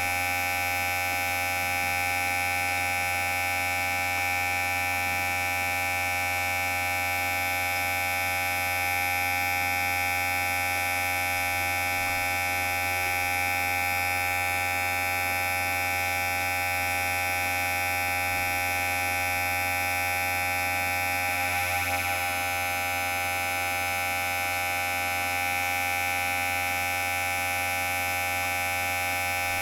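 Electric hair clipper running with a steady, even buzz, with a brief wobble about three quarters of the way through.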